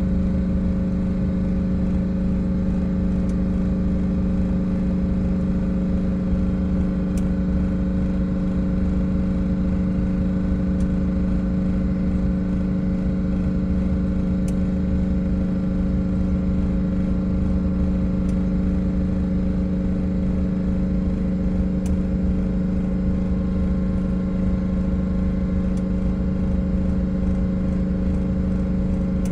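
Bus engine running steadily at a slightly raised idle with a little throttle, driving its air compressor as the air system builds pressure. A few faint ticks sound here and there over the steady hum.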